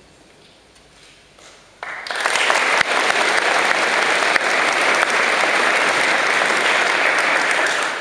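Audience applauding, starting suddenly about two seconds in and staying dense and steady from then on.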